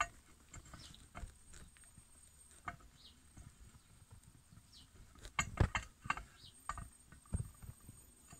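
Faint scattered clicks and taps of a hand handling a glass piece, with a louder cluster about five to six seconds in and another about a second later, over a faint steady high-pitched whine.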